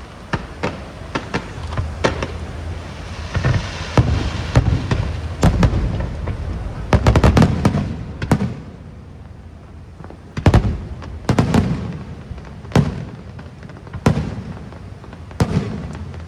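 Aerial fireworks shells bursting overhead: a run of sharp bangs a second or two apart, with a dense crackling volley about seven seconds in.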